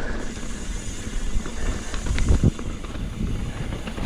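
Mountain bike riding a rocky dirt trail: tyres rolling over rock and gravel, the bike rattling and knocking over bumps, with wind noise on the camera's microphone. The hardest knocks come about two and a half seconds in.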